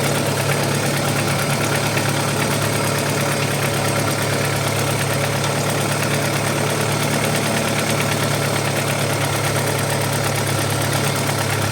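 Audi 80 B4's 2.0-litre four-cylinder petrol engine idling steadily while warming up, with a regular light ticking knock from the top end that the owner takes, with some doubt, for a hydraulic lifter.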